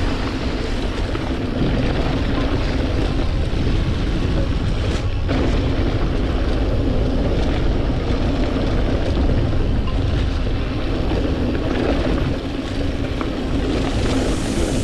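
Wind rushing over a bike-mounted action camera's microphone, over the steady rumble of mountain bike tyres rolling on a dirt trail.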